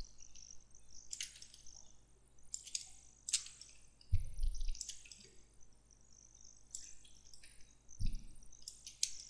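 Faint, scattered clicks of a computer mouse and keyboard while layers are duplicated and dragged, with two low thumps about four and eight seconds in.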